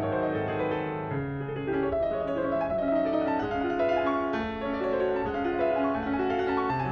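Background piano music, notes held and changing at a gentle pace.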